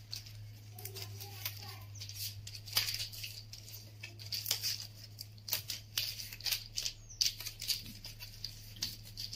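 Dry coconut palm fronds rustling and crackling with irregular sharp snaps as they are handled and woven by hand, over a steady low hum.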